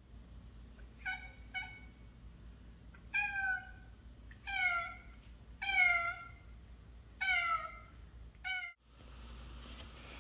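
Bengal cat meowing repeatedly: seven meows over about eight seconds, two short ones first, then longer calls that slide down in pitch, and a short one at the end.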